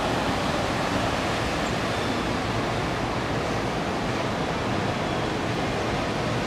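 Steady, even wash of surf from the beach below, with a low rumble under it and no distinct wave-by-wave swells.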